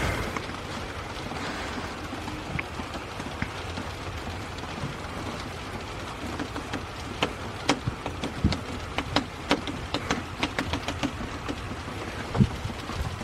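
Heavy rain pouring steadily, with sharp ticks of drops striking a hard surface close by that come thicker from about halfway through.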